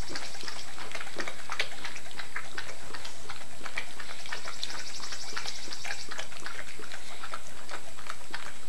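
A dog licking and lapping at a plastic soda bottle: a run of irregular small clicks and taps.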